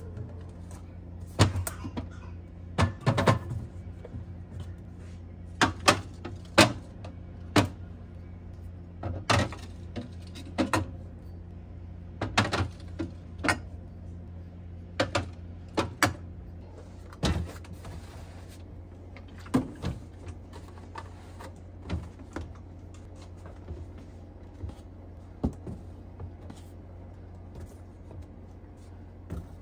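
Jars, tubs and bottles knocking and clinking against glass refrigerator shelves as they are lifted out by hand, irregular clunks every second or two, over a steady low hum.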